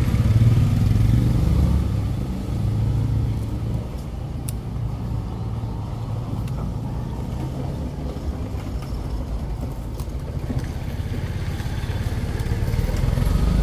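Low rumble of a motor vehicle engine, loudest in the first couple of seconds, easing off, then building again near the end.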